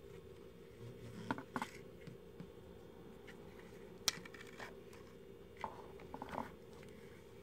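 Plastic prism glasses being handled: a few light clicks and taps from the frame and temple arms as they are folded and opened, the sharpest about four seconds in and a small cluster near the end, over a steady low hum.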